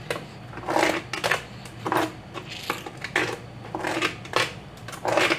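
A metal spoon stirring and scraping a steel pot of milky sweet potato kheer, one short scrape about every second.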